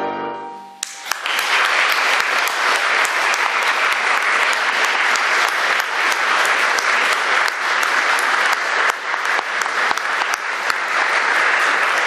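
The last chord of a domra and piano fades out, and about a second in the audience breaks into steady applause that carries on.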